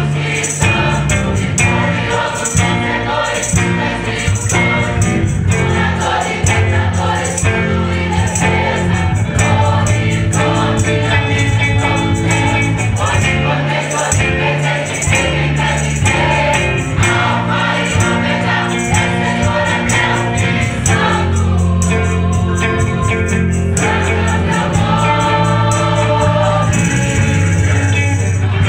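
Choir singing a gospel worship song together over instrumental accompaniment with a deep bass line and a steady beat.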